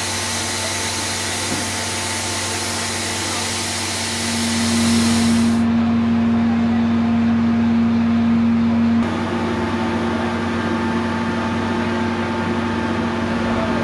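Steam hissing loudly around a steam locomotive's running gear, cutting off abruptly about five and a half seconds in. A steady low hum runs underneath and is loudest from about four to nine seconds in.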